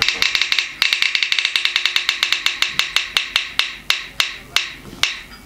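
Spin-the-wheel phone app ticking as its prize wheel spins down, played through the phone's speaker. The ticks come rapidly at first and slow steadily as the wheel loses speed, ending in a few widely spaced ticks.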